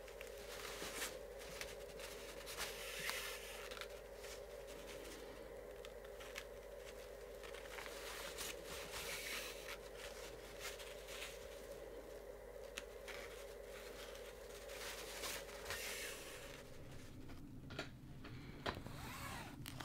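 Faint rustling and soft ticks of hand sewing: a needle and thread being drawn through stiff taffeta, over a steady low hum that stops about 17 seconds in.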